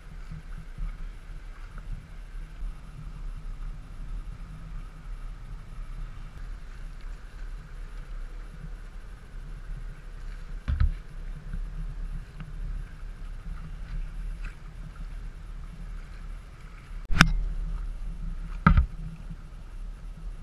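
Steady low rumble of boat outboard engines and water, with a faint higher drone from the engines. Three sharp knocks cut through it, about halfway through and twice near the end, the second of these the loudest.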